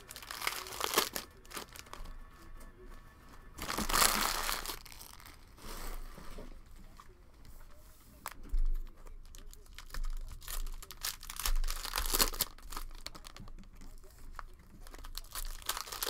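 Plastic cello wrappers of trading-card packs crinkling and tearing as they are ripped open by hand, in several separate bursts with quieter rustling between; the loudest tear comes about four seconds in.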